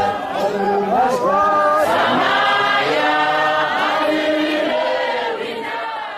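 A choir singing together, the sound slowly fading out toward the end.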